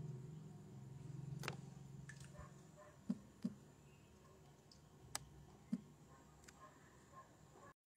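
Faint low rumble of street traffic fading away over the first few seconds, with about five short, sharp clicks and taps scattered through the quiet; the sound drops out abruptly just before the end.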